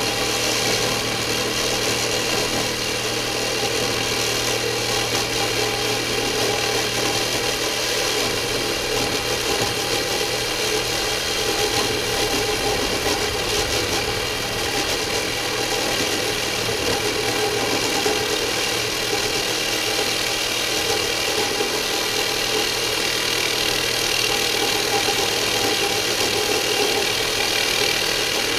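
Reciprocating saw running steadily as it cuts through a tightly rolled coil of galvanized steel hardware cloth.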